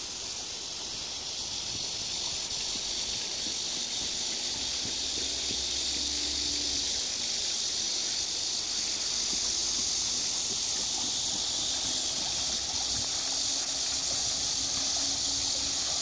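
A chorus of cicadas buzzing steadily as a continuous high drone, growing a little louder about halfway through.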